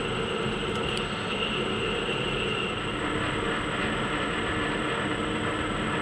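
Warco 280V metal lathe running steadily, its spinning chuck turning a metal rod while the cutting tool takes a cut and throws off chips, with a faint high whine over the steady machine noise.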